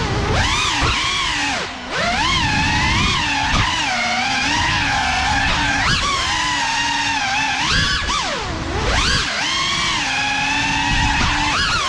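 GEPRC CineLog35 cinewhoop's brushless motors and propellers whining, the pitch rising and falling constantly with throttle as it manoeuvres, with brief drops in pitch about two seconds in and again near the middle.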